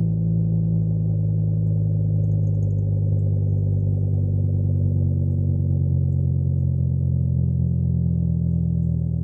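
Straight-piped exhaust of a 2012 Volkswagen Beetle's 2.5-litre 07K inline five-cylinder, idling after a cold start. It is a steady, low drone that eases slightly in loudness near the end.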